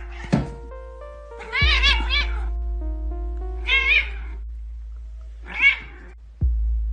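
A cat meowing three times in drawn-out calls that waver in pitch, over background music.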